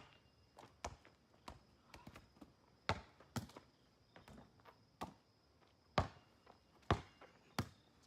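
A series of light, irregular knocks and taps, about eight in all, spaced roughly half a second to a second apart, a few of them sharper than the rest.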